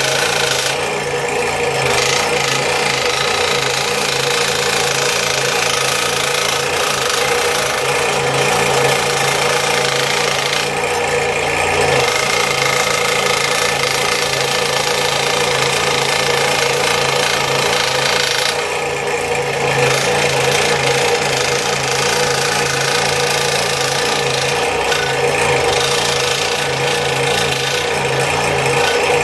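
Scroll saw running, its blade stroking rapidly up and down as it cuts out a thick poplar spoon blank: a steady motor hum under a rasping cutting hiss. The hiss eases for a moment a few times as the piece is turned.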